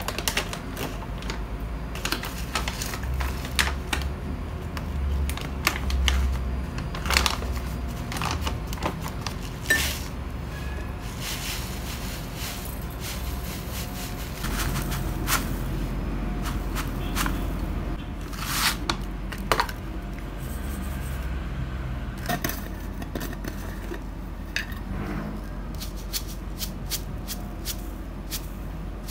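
A foil instant-coffee pouch crinkling as it is handled and tipped, with dry instant coffee granules falling into a glass bowl in irregular sharp clicks and crackles. Near the end sugar starts pouring into the bowl from a jar.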